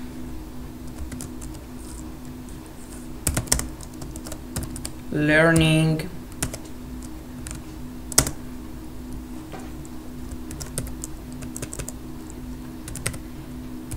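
Computer keyboard being typed on, a scattered run of single keystrokes with pauses between them, over a steady low hum.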